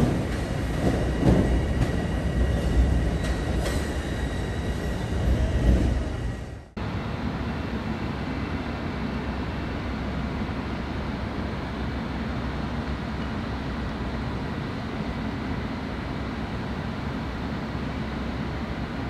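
Bombardier M7 electric multiple-unit train pulling out of the platform and moving away, its rumble easing, with a faint high whine. After a sudden cut about seven seconds in, a steady distant rumble of a train running over an elevated viaduct.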